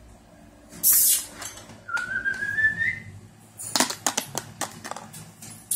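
A puppy whining: one thin whine, rising slightly in pitch and about a second long, two seconds in. Around it, a short loud hiss about a second in and a quick run of clicks and knocks in the second half.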